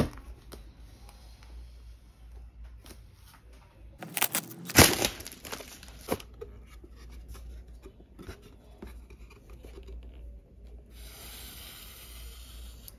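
Small plastic building bricks being handled and pressed together, with scattered light clicks, a louder clatter of clicks about four to five seconds in, and about two seconds of rustling near the end.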